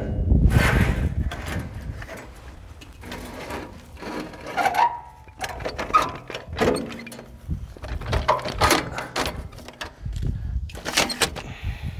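A folding metal entry ladder being pulled out and unfolded at a camper door: a string of clanks and knocks, with a low rumble at the start and again near the end.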